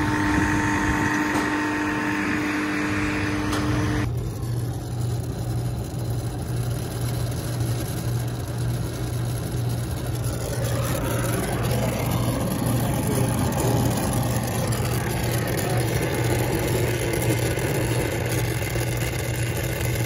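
Refrigerant recovery machine running, a steady hum with several held tones; it stops abruptly about four seconds in. After that a lower steady machine hum with hiss continues.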